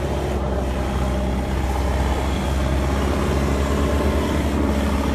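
Backhoe loader's diesel engine running steadily at close range, a low, even engine drone.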